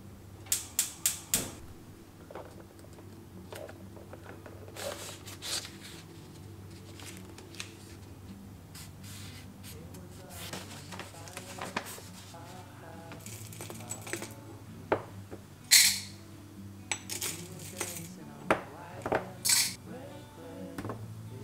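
Gas hob igniter clicking four times in quick succession as the burner is lit under a kettle. Then soft paper handling as a coffee filter is folded, and sharp clinks of a glass coffee-bean jar and other counter items being set down, the loudest a little past the middle.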